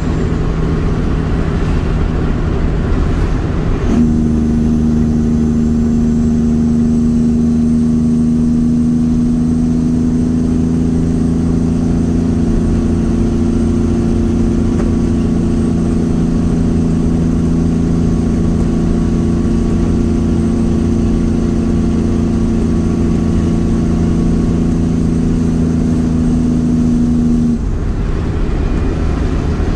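Truck engine running steadily on the road. About four seconds in, a steady engine note comes in at one pitch and holds until it stops shortly before the end.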